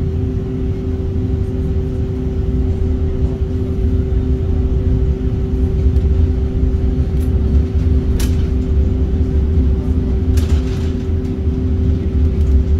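Tram heard from inside the passenger car while moving: a steady low rumble with a constant electric hum. A few faint clicks, and a short hiss about ten seconds in.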